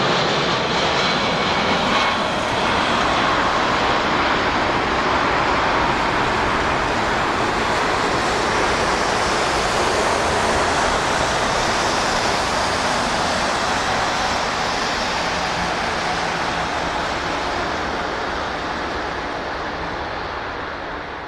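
Four jet engines of a Nippon Cargo Airlines Boeing 747-400 freighter, a loud steady rushing noise that slowly grows fainter over the last few seconds.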